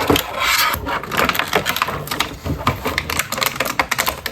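Close handling noise: a dense run of crackles, rustles and small taps as items are handled next to the microphone.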